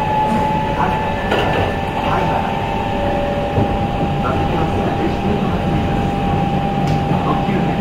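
Kintetsu 23000 series Ise-Shima Liner electric train running along the line: a steady rumble of the wheels on the track, with a steady whine held throughout.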